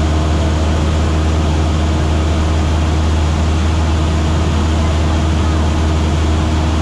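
Single-engine light aircraft's piston engine and propeller droning loudly and steadily in level cruise: a deep, even hum.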